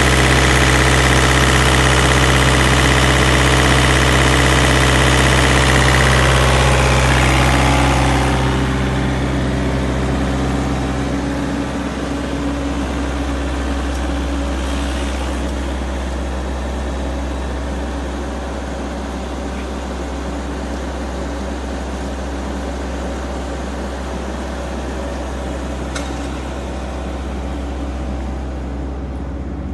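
The Thermo King SL200e reefer unit's diesel engine running steadily. It is louder for the first eight seconds or so, then settles to a somewhat quieter, even hum.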